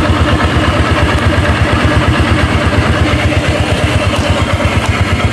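Tricycle's motorcycle engine idling steadily, left running to keep it in use, with a fast, even low pulse.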